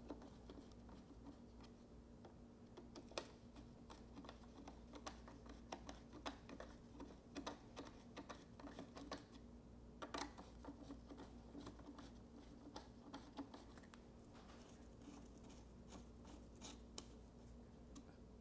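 Faint, irregular small clicks and taps of a hand tool and plastic parts as the backpack blower's air-filter housing is fitted back together, with a steady low hum beneath.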